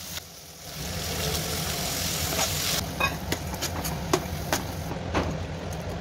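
Vegetables sizzling in a frying pan while a spatula stirs them, with a series of sharp knocks of the spatula against the pan from about halfway through. A steady low hum runs under it, starting about a second in.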